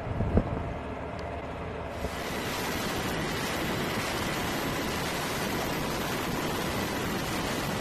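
Steady rush of wind and rotor noise at the open cabin door of a Seahawk helicopter in flight, rising to full strength about two seconds in. A short thump comes just before that.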